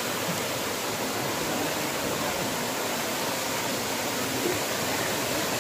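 Steady rush of river water cascading over rocks at a waterfall, an even, unbroken noise.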